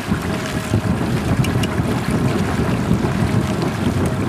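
Wind buffeting the microphone over the steady noise of a boat trolling on open water.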